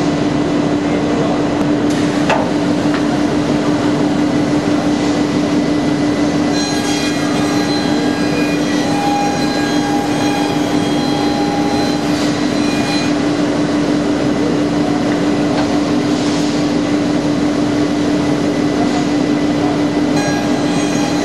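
PADE Hopper CNC bandsawing centre running and cutting wood: a steady machine hum under dense sawing noise. A sharp knock comes about two seconds in, and high whining tones come and go about halfway through and again near the end.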